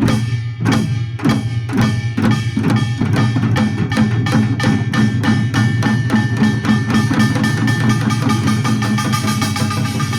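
Korean pungmul percussion ensemble (small gongs, hourglass drums, barrel drum and large gong) playing a fast rhythm that quickens over the first few seconds into a dense, driving pattern, with ringing gong tones underneath.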